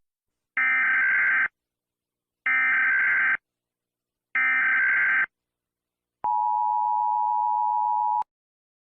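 Emergency Alert System data tones: three identical buzzy bursts of SAME digital code, each about a second long and evenly spaced, the usual signal closing an alert message. They are followed by a steady two-second tone near 1 kHz that cuts off abruptly.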